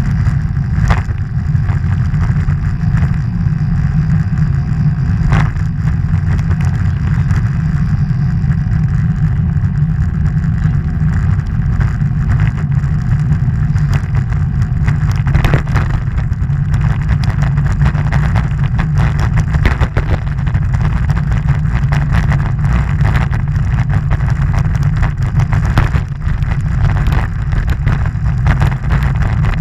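Wind buffeting the microphone of a moving vehicle, a steady low rumble mixed with road noise and a few short knocks from bumps.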